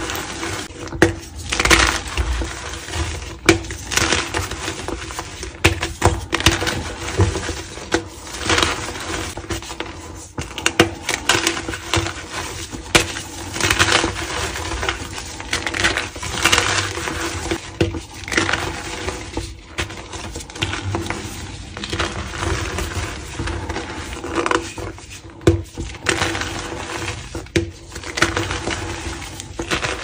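Homemade calcium carbonate gym chalk blocks squeezed and crumbled in bare hands: a run of dry crunches and crumbles, a fresh one every second or two.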